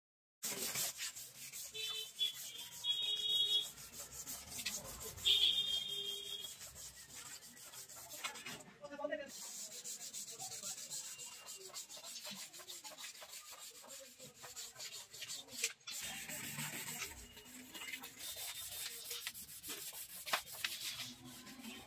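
Small hammer tapping copper evaporator tubing down onto an aluminium freezer-chamber plate, light irregular metal taps mixed with rubbing and scraping as the tubing is pressed into place. Two brief high-pitched tones sound about two and five seconds in.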